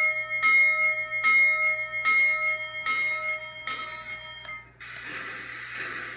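Polar Express model steam locomotive's electronic bell ringing, about six strokes evenly spaced just under a second apart. It stops about four and a half seconds in, and the locomotive's sound system changes to a soft rhythmic steam chuffing.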